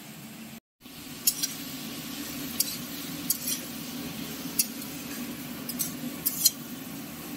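A spatula stirring vegetables in a kadai of hot oil, mixing in the salt and turmeric. Sharp scrapes and clinks of the spatula against the pan come every second or so over a steady low hum, after a brief cut to silence near the start.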